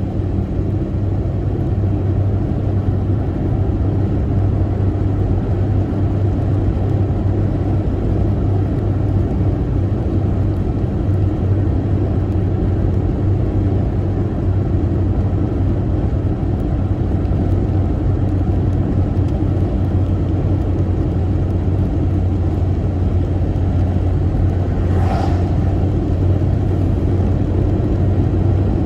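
Steady low hum and rumble of a car, with a brief, fainter higher sound about three quarters of the way through.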